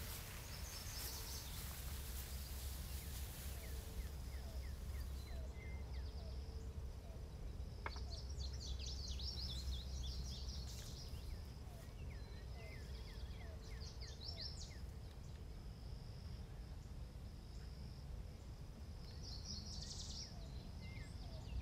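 Birds chirping in short twittering bursts every few seconds, over a faint steady insect drone and a low steady rumble.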